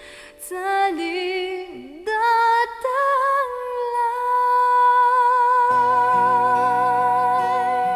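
Recorded song played back on a TEAC X-10R reel-to-reel tape deck: a high voice holds long notes with vibrato, and a fuller accompaniment with a bass line comes in a little over two-thirds of the way through.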